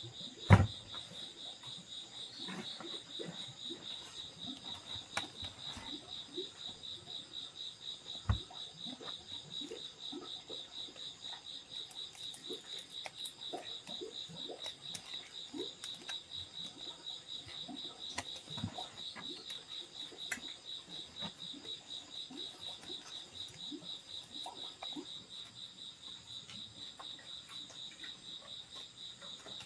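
Insects, crickets by the sound of it, chirping in a steady, rapidly pulsing high trill. Two sharp knocks break in, the louder about half a second in and another about eight seconds in.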